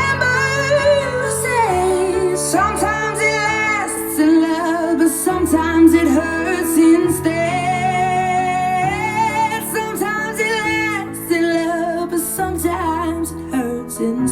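A pop song with a woman singing over instrumental accompaniment, played back through a smart speaker.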